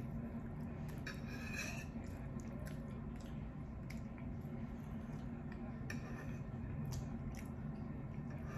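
Close-up eating sounds: a metal fork scraping and picking through cheese-sauced tater tots on a plate, then wet chewing with scattered small clicks, over a steady low hum.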